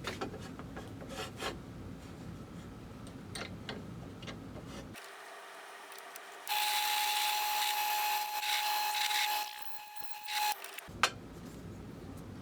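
Light clicks and knocks, then about four seconds of a drill bit boring a hole into a wooden handle blank: a loud, even cutting hiss with a steady whine, stopping abruptly, followed by one sharp click.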